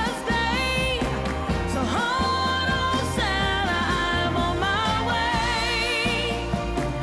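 Background music: a singing voice holds long, wavering notes and slides between them over a steady bass line.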